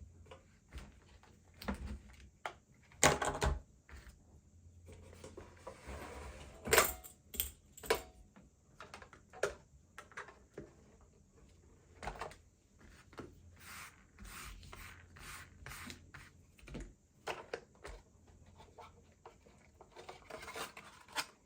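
Tools and small parts being handled and moved about on a workbench: scattered clicks, knocks and rubbing, the loudest knocks about three seconds in and just before seven seconds.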